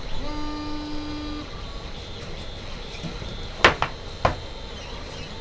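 Packaging of a small camera box being opened, with two sharp clicks about half a second apart past the middle. A steady pitched tone is held for about a second at the start.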